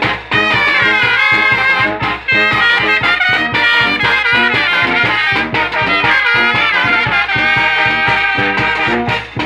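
A Mexican banda, a brass band, playing a lively tune: trumpets and trombones carry the melody over a steady low beat.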